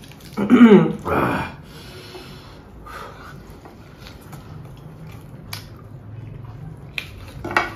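A short voice sound and a breathy snort about a second in, then a quiet room with a few faint clicks.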